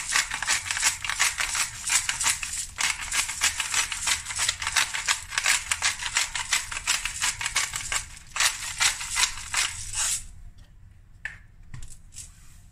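Pepper grinder being twisted by hand in quick strokes, a dense gritty crunching and clicking as black peppercorns are ground. There are short breaks about three seconds in and again near eight seconds, and the grinding stops about ten seconds in.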